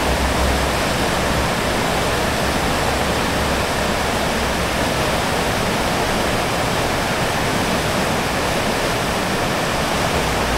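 River water rushing steadily, a loud, even roar of turbulent flow.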